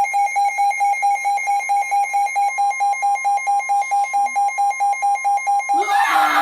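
Emergency Alert System attention tone: a loud two-tone electronic alarm beeping rapidly, about four to five beeps a second, announcing a severe thunderstorm warning. A voice cuts in near the end.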